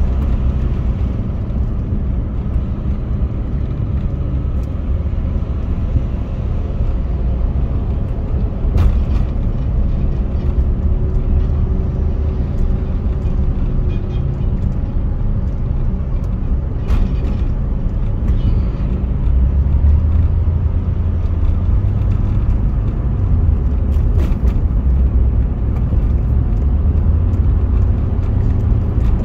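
Steady low rumble of road and engine noise inside a car driving on a busy expressway, with a few faint clicks.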